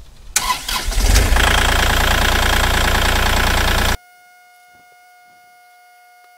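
2021 Kubota KX040-4 mini excavator's diesel engine starting, catching about a second in and then idling steadily, freshly refilled with oil and run to check for leaks. About four seconds in the sound cuts off abruptly, leaving only a faint steady hum.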